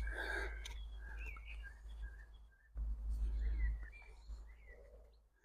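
Small birds chirping, a scatter of short, high calls, over a low rumble.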